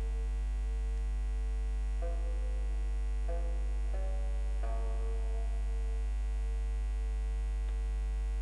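Soft background music of slow, sustained notes that change pitch a few times, over a steady low hum.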